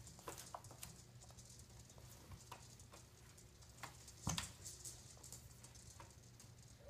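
Scattered light taps and clicks of a baby handling the plastic toys and tray of an activity jumper, with one louder knock about four seconds in, over a faint low hum.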